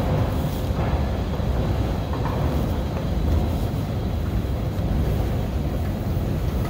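Steady low rumble with a light hiss above it, no distinct events: the background noise of a metro station, heard on the way down the escalator.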